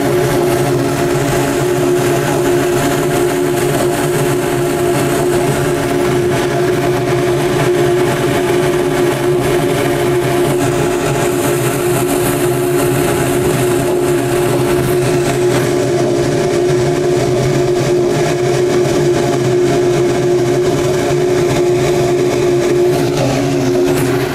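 Cremation furnace running with its door open: the steady roar of the burner flames and combustion-air blower, with a constant mechanical hum underneath.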